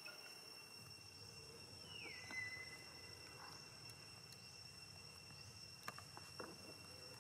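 Faint, steady, high-pitched drone of forest insects. A call drops in pitch and holds for about a second, about two seconds in, and two soft clicks come near the end.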